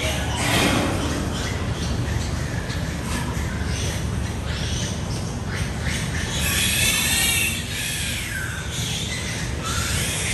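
Piglets squealing in a series of high-pitched cries, the longest about six seconds in, over a steady low rumble.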